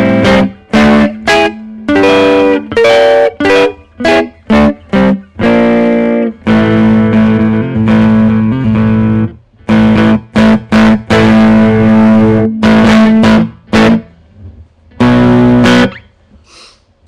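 Electric guitar with Guitar Fetish Neovin noiseless Telecaster pickups, played through an amp with both pickups selected at the switch's middle position. Struck chords and single notes, some cut short and some left ringing, stop about a second before the end.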